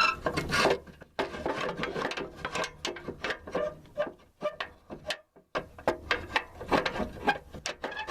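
Irregular metal clicks and clanks of the mower deck's hanger pins and linkage being worked into place under a riding lawn mower.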